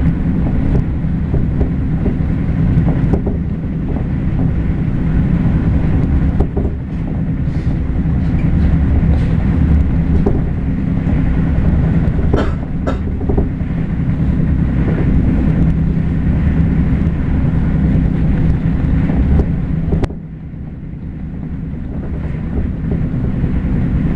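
JR Hokkaido electric train running, its bogie giving off an abnormal clunking rumble ("gotogoto") over a steady low running noise, with a few sharp knocks. About twenty seconds in the noise suddenly drops and then slowly builds again.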